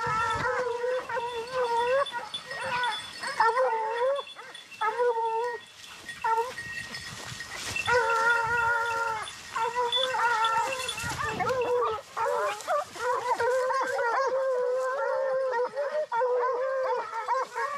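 A pack of porcelaine scenthounds baying in long, wavering, overlapping cries as they work the fresh scent where wild boar had been lying up. The calls pause briefly twice and then carry on.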